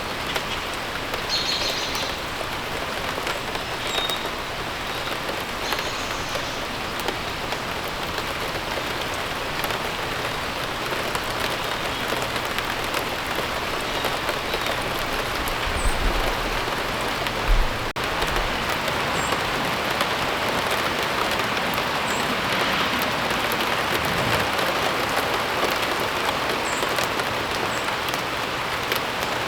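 Steady rain falling, with short high bird chirps now and then and a brief low thump a little past halfway.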